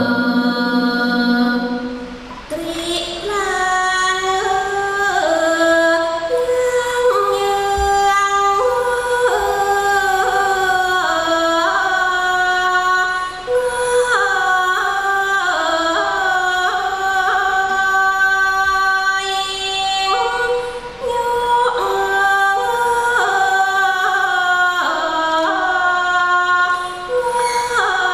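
A woman singing a slow Thai classical song in long held notes that step up and down in pitch, with a short break about two seconds in.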